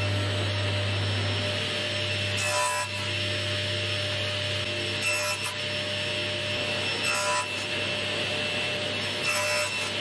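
Table saw running and cutting plywood: a steady motor hum under a continuous cutting hiss, with brief louder bursts every two seconds or so.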